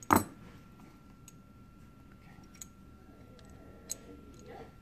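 Hands working parts onto a Ford two-barrel carburetor body: one sharp knock just after the start, then a couple of faint small clicks of parts being handled.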